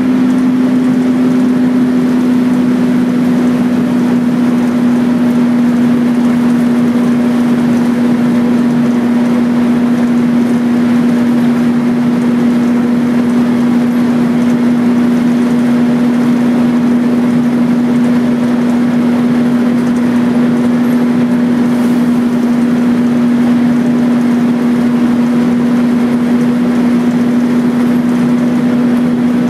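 Volvo B10BLE bus's rear-mounted diesel engine heard from inside the passenger saloon, running with a loud, steady drone whose pitch does not change.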